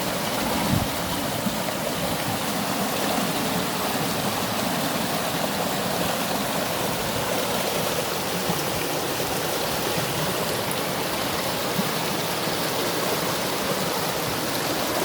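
Flowing water rushing steadily, an even unbroken wash of sound.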